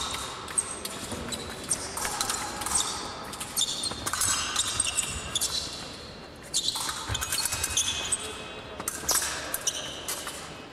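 Épée fencing bout: blades clicking and clashing, some contacts ringing briefly, amid repeated footwork thuds and shoe squeaks on the piste.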